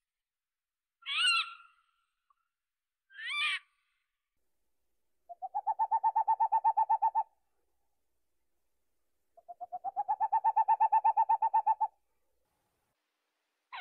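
Owl calling: two short, higher calls, then two long trills held on one pitch, each a rapid even run of notes lasting two to three seconds.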